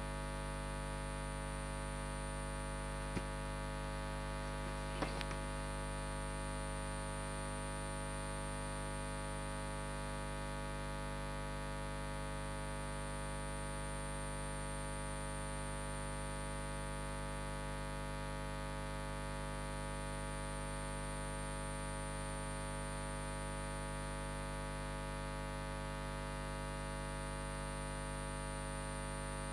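Steady electrical mains hum and buzz, with a thin high whine above it. Two faint clicks come a few seconds in.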